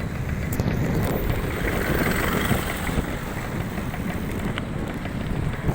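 Wind rumbling on the microphone while a bike is ridden, with a few sharp clicks or knocks, about half a second, one second and four and a half seconds in, from a bike that has a clunking problem.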